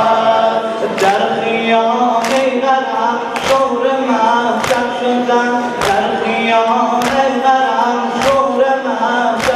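A crowd of men chanting a Muharram mourning lament together while beating their chests in unison (sinazani), a sharp slap landing on each beat roughly once a second.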